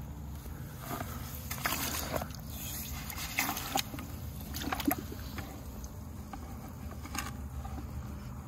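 Garden hose running water into a five-gallon plastic bucket of pool filter sand while a hand churns the sand, with steady sloshing and a few louder splashes about two, three and a half, and five seconds in. The sand is being washed: the water is filling up muddy brown with fine dust.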